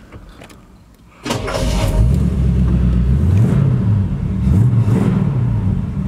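A 400 cubic inch Chevy small-block V8 in a 1953 Ford F100 pickup starts about a second in and catches. It then runs at idle and is revved up and back down twice.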